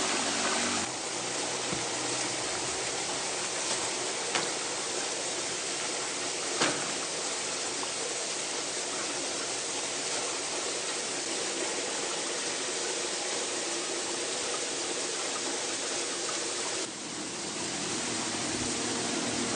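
Steady rush of a nearby stream. Two sharp clicks stand out, one about four seconds in and a louder one about six and a half seconds in.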